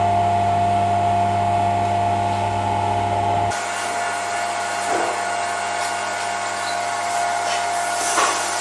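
A steady hum with a constant high tone running through it; a low rumble under it drops out about three and a half seconds in.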